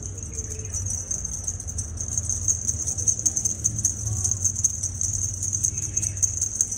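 High, steady, fast-pulsing rattling buzz of insects, over a low hum.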